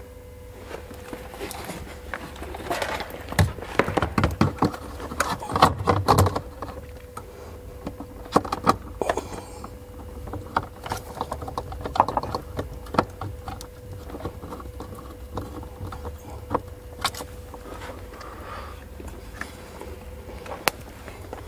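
Hands working car wiring looms and plastic plug connectors behind a dashboard: a run of clicks, rustles and knocks, busiest in the first several seconds, then scattered sharp clicks, over a faint steady hum.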